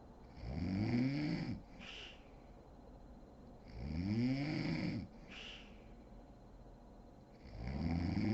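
A sleeping woman snoring: three long snores about three and a half seconds apart, each rising then falling in pitch, each followed by a short breathy puff.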